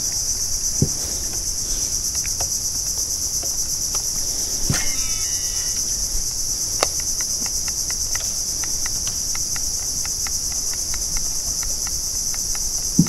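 Steady, high-pitched chorus of insects buzzing in mangrove forest, slightly pulsing. A few faint clicks and, in the second half, a run of faint regular ticks sound under it.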